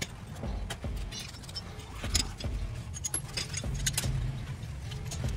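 Stud-welder dent puller working on a steel car fender: a string of sharp clicks and metallic clinks from the welding tip and slide hammer on the sheet metal, over a low electrical hum.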